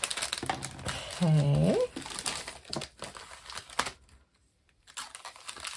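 Clear plastic packaging bags crinkling and rustling as a craft kit is handled and packed back into them, stopping for about a second near the end.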